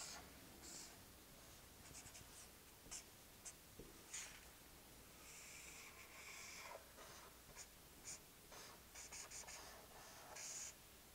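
Faint scratching and squeaking of a marker pen drawing lines on paper: a run of short strokes, a longer stroke about halfway through, and a quick cluster of strokes near the end.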